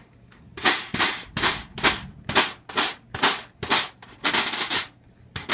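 Snare drum strainer's tension adjuster being turned by hand to tighten the snare wires: a run of short scraping rubs, about two a second, ending in a quicker rough stretch.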